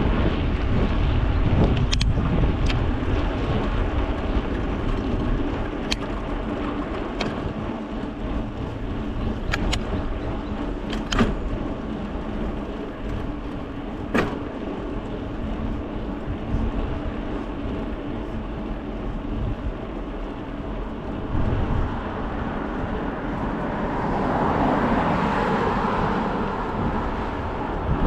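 Riding noise from a bicycle on the move: steady wind and tyre rumble, with sharp clicks and ticks several times in the first half. The noise swells for a few seconds near the end.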